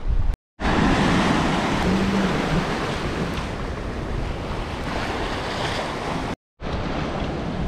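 Atlantic surf washing into a natural sea pool on the shore, a loud, steady rush of waves that eases slowly. The sound cuts out completely twice for a moment, about half a second in and near the end.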